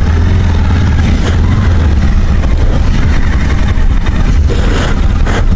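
Motorcycle being ridden at a steady pace, its engine running under loud, steady wind rush on the onboard camera's microphone.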